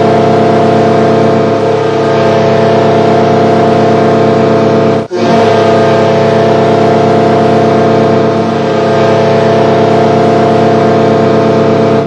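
Hartford Whalers goal horn sounding in long, steady blasts. One blast is held until about five seconds in, then it breaks off briefly, and a second blast is held to near the end.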